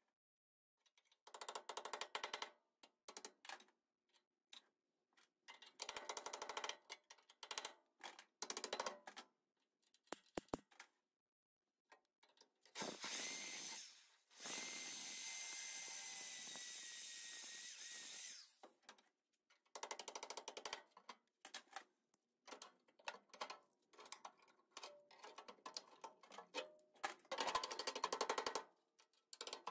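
Power tool working on the Bronco's sheet-metal body in short bursts, with one steady run of about five seconds in the middle.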